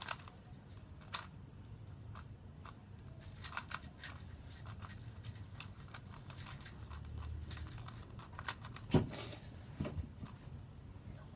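Tornado V2 M magnetic 3x3 speedcube being turned fast: a quick, irregular run of plastic clicks and clacks as the layers snap round, with a louder knock about nine seconds in.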